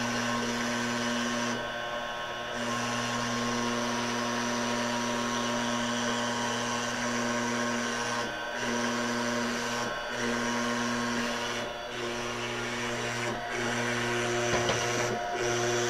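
TorqueCNC 9060 CNC router cutting sheet material with a small end mill. A steady high whine runs under lower motor tones that shift in steps as the head moves, with brief dips every couple of seconds.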